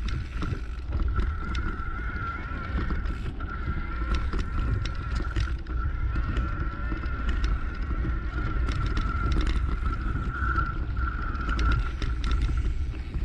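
Wind buffeting the action camera's microphone as a low rumble while riding a rutted dirt track, with frequent knocks and rattles from the bumps and a steady high-pitched whine throughout.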